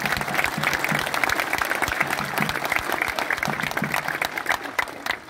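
Crowd of spectators applauding, with many dense hand claps that die away near the end.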